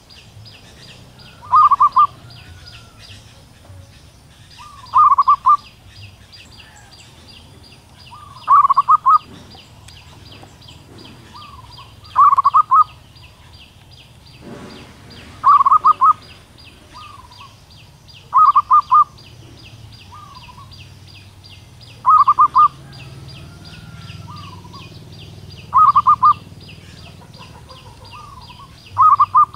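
Female zebra dove calling for a mate: a quick stutter of notes repeated about every three and a half seconds, often followed by a softer coo. A fast, steady, high ticking runs underneath.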